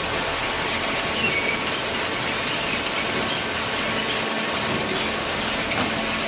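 Horizontal hydraulic waste paper baler running: a loud, steady mechanical din with a few short, high squeaks scattered through it.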